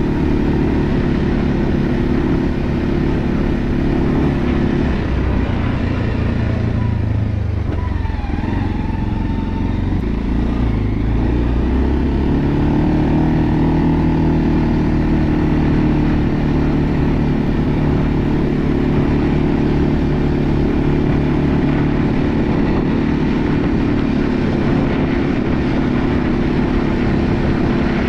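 Segway Snarler AT6 L ATV's 570 cc single-cylinder four-stroke engine running under way. Its note drops lower about five seconds in, picks up again about twelve seconds in, and then holds steady at cruising speed.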